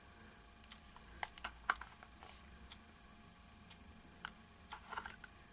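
Faint, scattered light clicks and taps of a small plastic cosmetic jar being handled and turned in the fingers, a few around a second or two in and a few more near the end.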